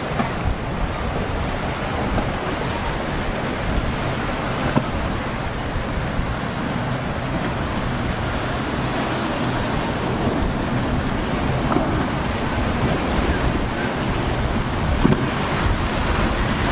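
Rough surf and wind, with wind buffeting the microphone: a steady, loud noise of breaking waves.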